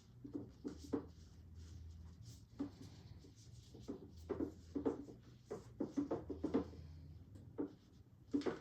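Irregular rustling and soft taps of gloved hands handling wound-care supplies as a new split gauze dressing is put in place, over a low steady hum.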